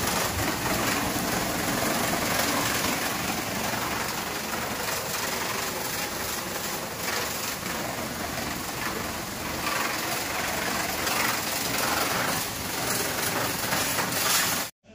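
Pressure washer jet hissing steadily as it sprays onto a mini bike and the concrete floor, with the washer's pump motor running underneath. It cuts off suddenly near the end.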